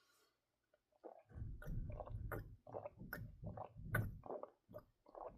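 A person gulping water, a quick run of swallows with small mouth clicks starting about a second in and easing off toward the end.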